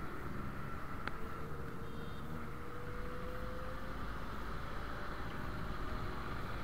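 Motorcycle riding in city traffic: steady engine and road rumble, with one engine note rising gently over the first few seconds as it picks up speed. A single short click about a second in.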